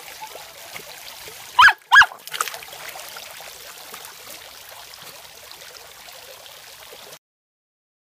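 Garden fountain water splashing and trickling steadily, broken by two sharp, loud barks from a dog about a second and a half and two seconds in.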